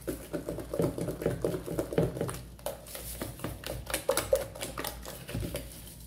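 Spatula stirring thick banana cake batter in a plastic bowl: a quick, irregular run of wet slaps and scrapes, several strokes a second.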